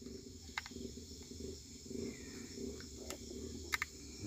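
Night-time crickets trilling steadily in the background. A few sharp clicks come through about half a second in, around three seconds in, and as a quick double click near the end.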